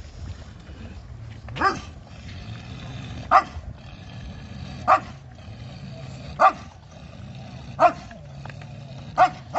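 A dog barking repeatedly, one bark about every second and a half, with two barks close together near the end.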